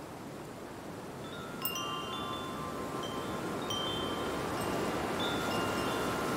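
Chimes ringing, several held high tones overlapping, over a steady rushing noise that slowly grows louder; the chimes come in about a second and a half in with one sharper strike.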